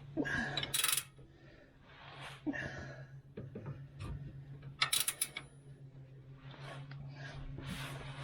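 Hand tools working on metal: scattered metallic clinks and scraping, with sharp clicks about a second in, about five seconds in and near the end, over a steady low hum.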